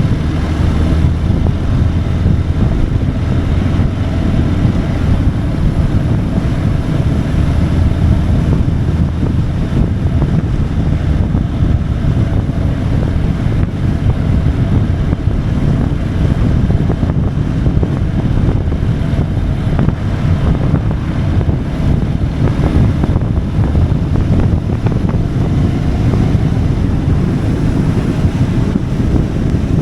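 Wind rushing over the microphone of a moving motorcycle, a loud, steady, deep rush, with the motorcycle's engine running underneath at a steady speed.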